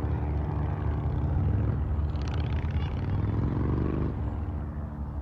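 Harley-Davidson motorcycle engine running on a ride, with a steady rumble. The revs climb for about a second near the middle and then drop off suddenly.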